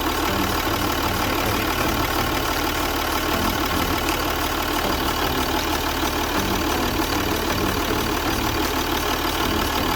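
Ford Territory's 2.7 V6 diesel engine idling steadily.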